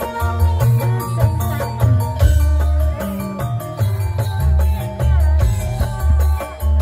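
Javanese gamelan music accompanying a jathilan horse dance: a dense run of drum and percussion strokes over ringing metallophone tones and deep low notes.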